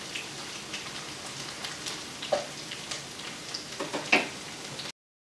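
Okra frying in oil in a skillet: a steady sizzle with fine crackles, and a few sharper clicks about two seconds in and again near four seconds. The sound cuts off suddenly just before the end.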